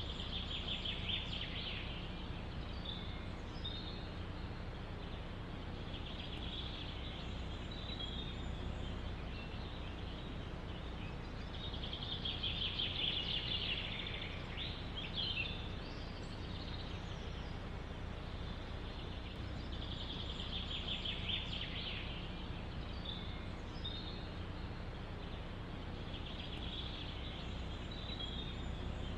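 A songbird singing a fast, high trilled phrase about two seconds long, five times at roughly six-second intervals, loudest near the middle. Under it runs a steady low rumble of wind.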